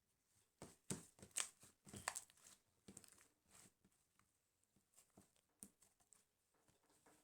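Faint rustling and crinkling handling noise: a quick run of short crackles in the first half, thinning to a few soft ticks later.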